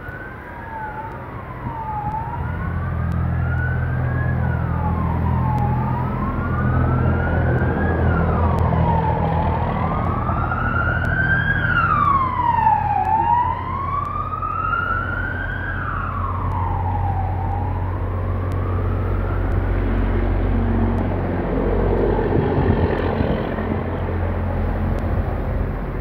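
A siren wailing, its pitch sweeping up and down about every two seconds, with a second siren tone overlapping briefly midway, before it stops a little over halfway through. Under it runs a steady deep hum.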